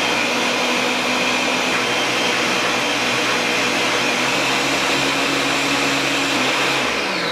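Countertop blender running at high speed, pureeing strawberries with sugar syrup into a smooth liquid. The motor sound is loud and steady.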